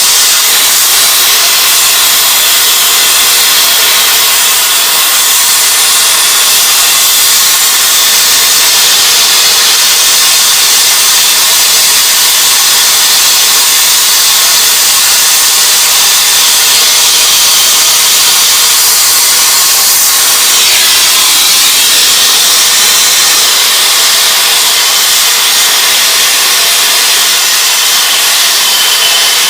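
Acetylene torch flame hissing steadily as it heats copper tubing for silver soldering.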